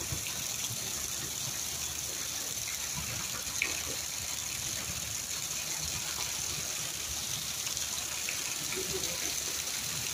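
Heavy rain falling steadily on a flooded, muddy yard: an even hiss of rain on standing water. One brief knock about three and a half seconds in.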